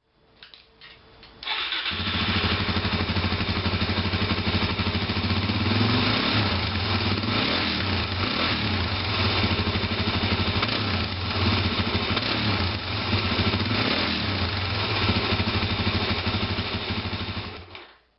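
Suzuki DR-Z400SM single-cylinder four-stroke engine started with a brief crank, catching about a second and a half in, then running steadily through its exhaust before being switched off near the end.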